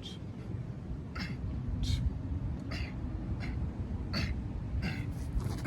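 Short, sharp breaths pushed out by a person doing an ab exercise, recurring about once or twice a second over a steady low outdoor rumble.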